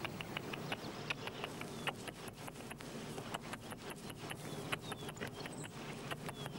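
An irregular run of small dry clicks and crackles, several a second, over faint rustling in low dry shrubs, with a few faint high bird chirps.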